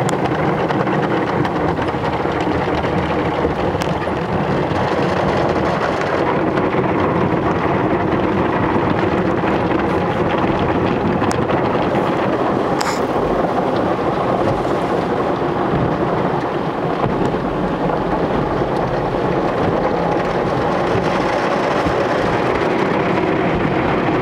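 Automatic car wash spraying water and soap onto a car, heard from inside the cabin as a loud, steady rush like heavy rain on the roof and windows.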